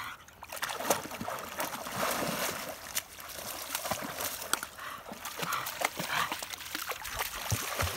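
Dog splashing through shallow river water, an uneven run of splashes and sloshing.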